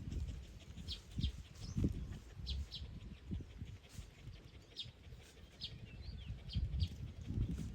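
Short high-pitched animal chirps, often in quick pairs, recurring about once a second, over low rumbling and knocking noise.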